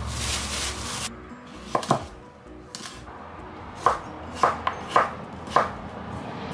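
A plastic bag rustling for about a second, then a kitchen knife chopping a cucumber on a wooden cutting board: about seven sharp, irregularly spaced chops.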